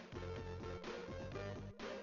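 Upbeat background music with plucked guitar over a steady bass beat.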